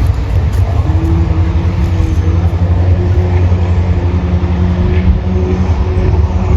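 A motor running steadily, with a heavy low rumble and a faint steady hum above it.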